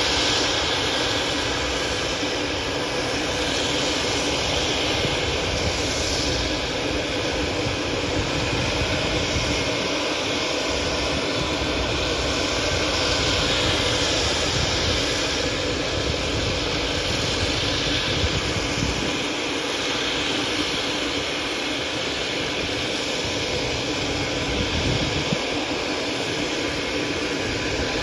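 Steady whine and rush of a jet turbine running at low power, with wind buffeting the microphone.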